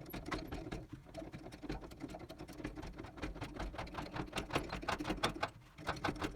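Rapid, even mechanical clicking, about six or seven clicks a second, with a short break near the end before it starts again.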